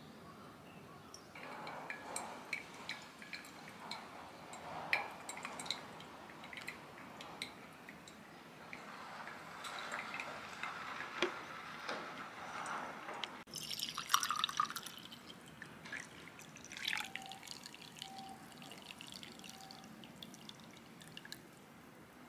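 Hot water poured in a thin stream from a gooseneck kettle onto a drip-bag coffee filter, with coffee dripping and trickling into a glass server below. There is a short louder burst about two thirds of the way in.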